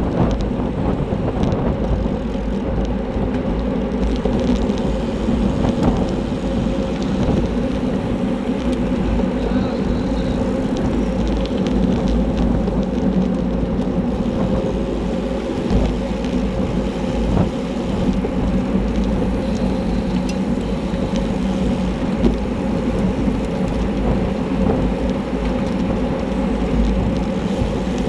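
Wind buffeting the microphone of a handlebar-mounted camera on a road bike at race speed, over a steady rumble and hum from the tyres on the road.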